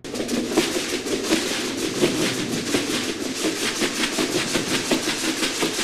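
Plastic soda bottles shaken as shakers, giving a fast, even rattling rhythm of about eight strokes a second.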